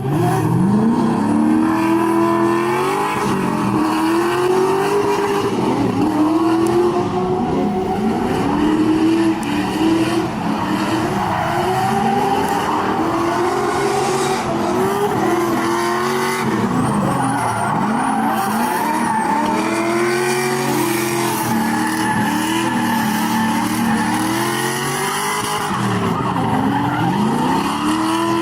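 LS-swapped Nissan 350Z's 5.3 L V8 revving up and down over and over, its pitch rising and falling every couple of seconds, with tyres screeching as the car drifts.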